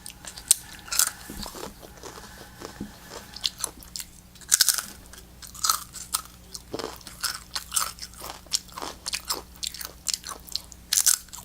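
Doritos tortilla chips being bitten and chewed close to the microphone: a long irregular run of crisp crunches.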